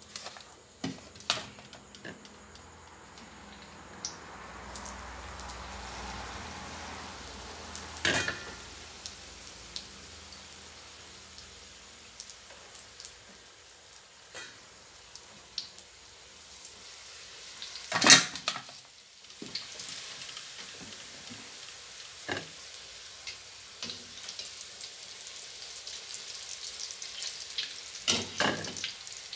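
Wontons deep-frying in hot oil in a steel wok: a steady sizzle that grows louder near the end. Several sharp metal clanks of a skimmer or ladle against the wok break in, the loudest about 18 seconds in.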